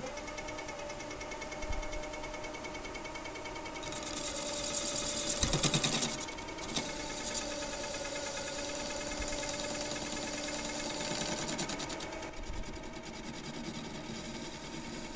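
Mini lathe running, its cutting tool facing the stainless steel face of an electromagnet. The machine's steady hum carries a high cutting noise, loudest about four to six seconds in, that eases off past the twelve-second mark as the light surfacing cut goes on.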